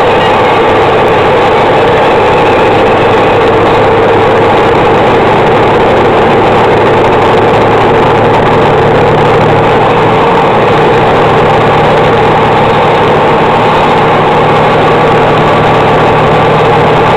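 Engine and road noise of a vehicle driving at highway speed, heard from inside the cab as a loud, steady drone with a constant hum. A low hum grows stronger about halfway through.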